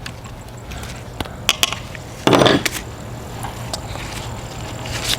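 Small clicks and a short scrape as an M5 bolt is worked into 3D-printed plastic stock parts, with the loudest scrape about two seconds in.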